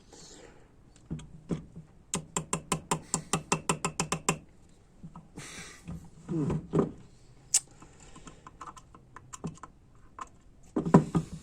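Light clicking of small hard parts being handled and fitted during a transmission valve body assembly: a quick, even run of about a dozen clicks between two and four seconds in, then scattered single clicks.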